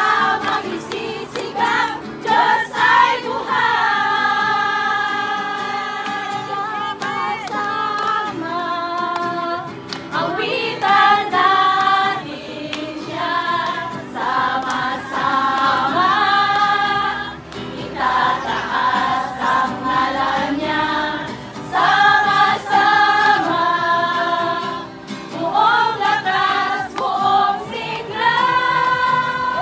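A group of women singing a song together in a lively sing-along, with hand clapping and a strummed small acoustic guitar.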